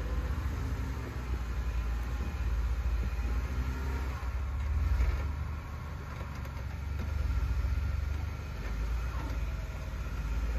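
Jeep Wrangler JK engine running at low revs as it crawls over rocks, a low rumble that rises and falls a few times.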